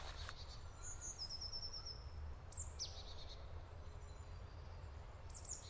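Faint forest birdsong: scattered high chirps, a short trill of quickly repeated notes about a second in, and a falling whistled note near the middle, over a steady low rumble.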